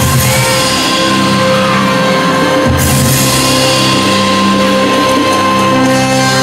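Loud dramatic backing music for a dance-drama, with long held chords over deep low notes; the low notes change about three seconds in.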